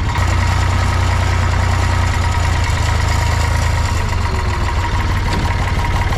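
Tractor engine idling steadily, close by.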